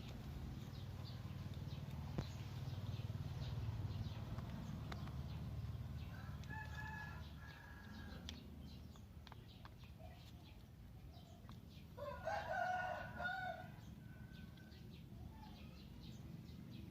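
Rooster crowing twice: a weaker crow about six seconds in and a louder one about twelve seconds in.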